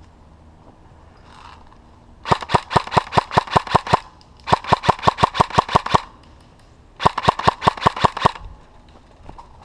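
Airsoft gun firing three fast full-auto bursts of about seven shots a second, each burst lasting a second and a half or so, with short pauses between them. The sharp, loud shots point to a gun close to the microphone.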